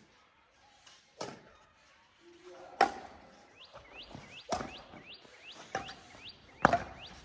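Badminton rackets hitting a shuttlecock back and forth in a rally: about five sharp, crisp hits a second or two apart. From about halfway in, a bird calls in a quick run of short rising chirps, about two a second.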